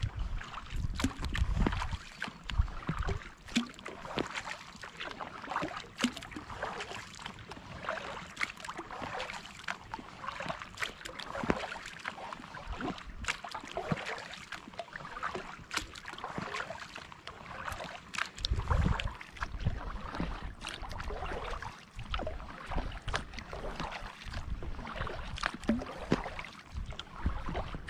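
Kayak paddle strokes through calm water, with water splashing and dripping off the blades and small clicks and knocks. Wind rumbles on the microphone in the first few seconds and again about two-thirds of the way through.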